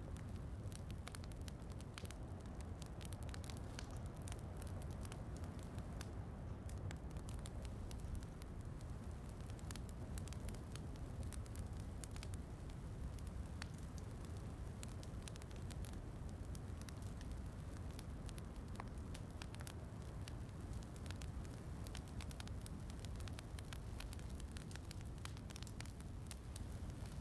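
Wood fire crackling in a fireplace, with many scattered small pops and snaps over a steady low rumble.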